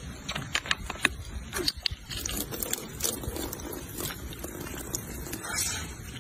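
Plastic juice bottle crackling and clicking in quick, irregular snaps as a macaque grips it and works at the cap with its mouth.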